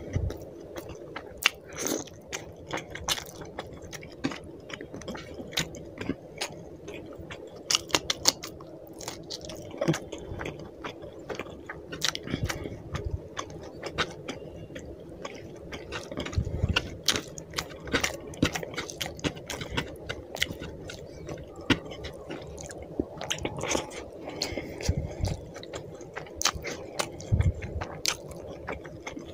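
Close-up mukbang eating sounds: wet chewing and lip-smacking of rice and fish curry eaten by hand, with frequent sharp mouth clicks, and fingers squishing rice into the gravy.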